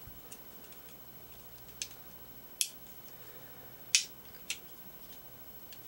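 A few small, sharp plastic clicks, about four spread a second or so apart, the loudest two near the middle: the fold-out heads of a handheld plastic connector cleaner being snapped open and shut.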